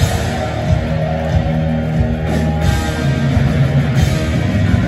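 Live rock band playing loud: electric guitars, bass guitar and a drum kit, amplified through a concert hall's sound system.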